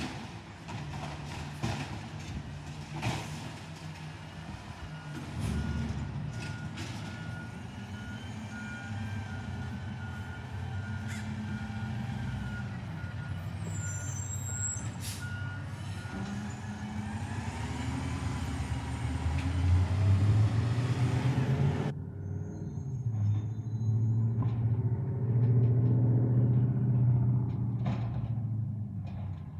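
Green-waste collection truck with its diesel engine running and a reversing beeper sounding a steady series of beeps for several seconds in the middle. In the second half the engine runs louder and harder.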